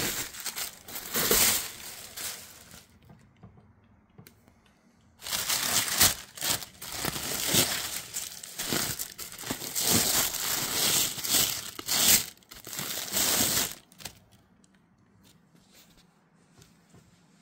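Honeycomb kraft paper packing wrap and tissue paper crinkling as they are handled and pulled apart. It comes in two spells, with a pause of about two seconds between them, and fades to faint handling noise for the last few seconds.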